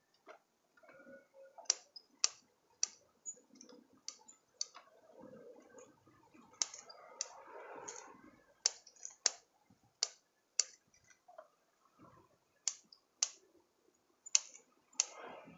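Bonsai scissors snipping twigs off a water jasmine (anting putri) bonsai in a full pruning: sharp, irregular clicks at about one or two a second, with leaves rustling between cuts around the middle.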